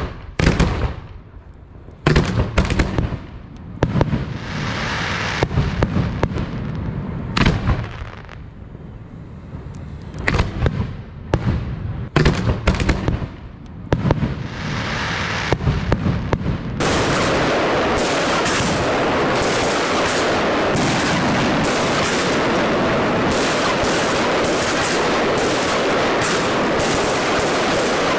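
Fireworks going off: separate sharp bangs, each followed by a crackling fizz, then about two-thirds of the way in a sudden dense barrage of rapid bangs and crackle that keeps going.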